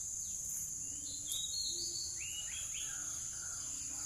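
Steady high-pitched insect chorus. A bird gives a run of short whistled notes, starting about a second in and stepping down in pitch toward the end.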